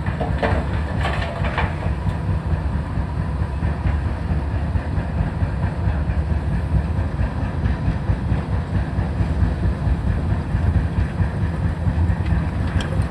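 Heavy plant working on a demolition site, a rubble crusher and excavator and loader engines, as a steady low rumble with a faint whine, mixed with wind buffeting the microphone. A few metallic clanks come in the first couple of seconds.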